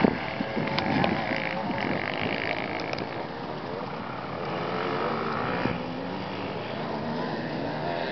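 Off-road motorcycle engine heard from a distance across the field, its revs rising and falling as it rides the enduro track.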